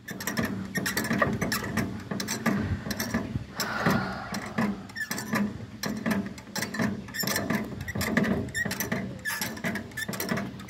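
Hand-cranked geared cable winch on a river ferry being turned, its gears clicking and rattling in a quick, continuous stream.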